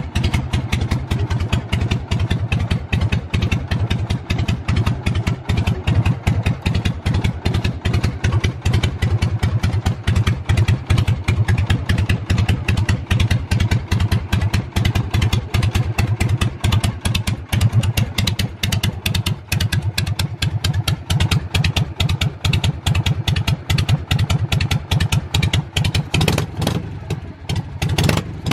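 Harley-Davidson Shovelhead V-twin motorcycle engine idling steadily through open exhaust pipes, a fast, even train of exhaust pulses.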